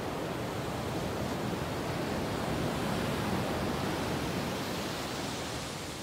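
Pacific surf breaking and washing up a sandy beach: a steady rushing that swells a little in the middle and eases off near the end.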